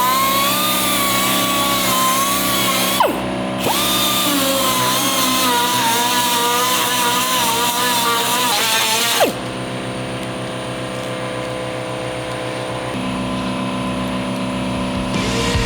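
Small rotary sander whining as it cleans up the inside of a steel frame tube, its pitch wavering under load. It is released twice, about three and nine seconds in, and its pitch drops as it spins down. A quieter, steady hum follows the second stop.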